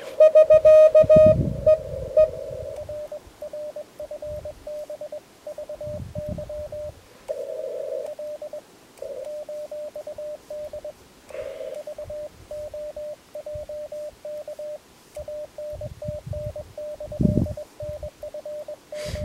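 Morse code (CW) from a shortwave transceiver's speaker: a single tone keyed on and off in dots and dashes, louder in the first couple of seconds, over faint band hiss. A few low thumps come through as well.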